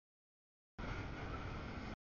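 Freight train of double-stack container cars rolling past, a steady noisy rumble of wheels on rail. It comes in as one block of about a second that starts and cuts off abruptly after dead silence.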